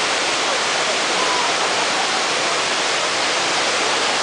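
Small waterfall cascading over rocks into a shallow pool: a steady rush of falling water.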